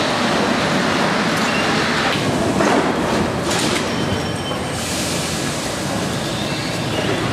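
Rubber-tyred MP 59 Paris Métro train rumbling into the station and braking to a stop, with brief high squeals midway and a burst of hiss as it comes to rest. Near the end a rising motor whine begins.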